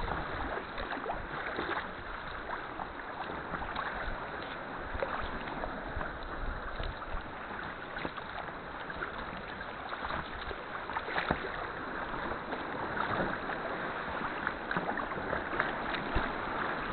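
Sea kayak being paddled: a steady wash of sea water with many small splashes from the paddle blades and water against the hull.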